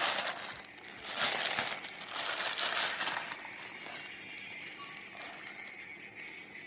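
Plastic courier bag crinkling and rustling as it is handled and pulled off a parcel, in three louder bursts over the first three seconds, then softer rustling.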